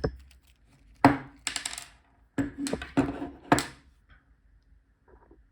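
Metal clinking as a padlock and small steel tools are handled and set down on a hard surface: several sharp metallic knocks and short rattles over the first four seconds, then a faint rattle near the end.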